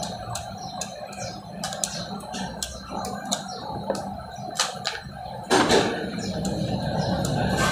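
Steady low machine hum with irregular sharp metallic clicks and knocks, and a louder clatter about five and a half seconds in.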